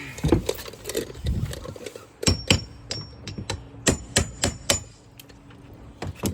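A hammer striking about ten sharp blows, several with a brief metallic ring, as nails are worked out of siding. Rougher knocking and scraping come in the first two seconds.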